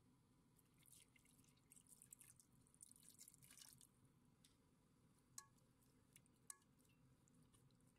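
Faint kitchen handling sounds: light rustling in the first few seconds, then two small clinks about a second apart.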